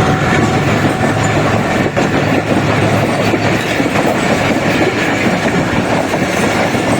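A train running on the rails: a loud, steady rumble with the clatter of wheels over the track.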